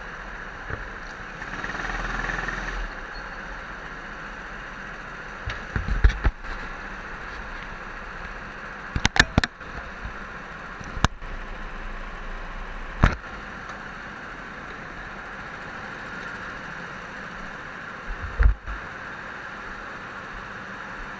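Go-kart rolling slowly through the pit lane, heard through its onboard camera: a steady hum that swells briefly about two seconds in, with a handful of sharp knocks and bumps scattered through it.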